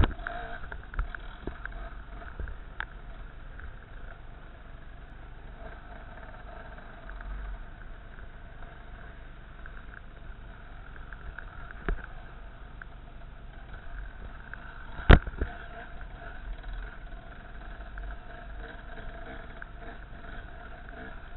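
Off-road trail motorcycle's engine running steadily as it rides a rough forest trail, with a few sharp knocks as the bike jolts over the ground, the loudest about 15 seconds in.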